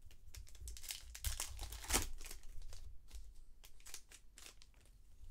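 Crinkling and tearing of a baseball card pack's wrapper as it is opened and the cards are slid out: a run of small crackles, loudest about two seconds in.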